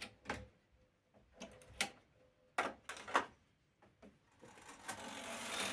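Several separate clicks from the Brother KR-830 knitting machine carriage being handled, then, from about four and a half seconds in, a steady mechanical rattle growing louder as the carriage runs across the needle bed.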